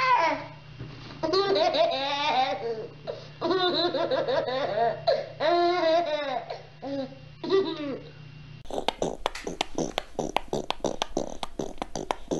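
A toddler laughing in repeated bursts. About three-quarters of the way through, this gives way abruptly to a fast, irregular run of clicks and taps.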